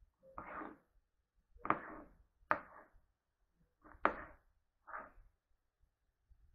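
Knife slicing a raw tilapia fillet into small pieces on a plastic cutting board: five separate cuts about a second apart, each a sharp tap of the blade on the board with a short slicing sound.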